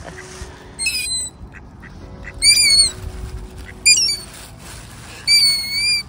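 A gull calling: four high, wavering squealing calls, the last one the longest.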